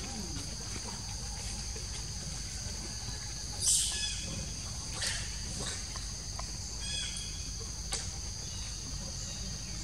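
Steady high-pitched drone of insects in the forest, over a low steady rumble. A few brief sharp sounds cut in, the loudest about four seconds in, with smaller ones near five and eight seconds.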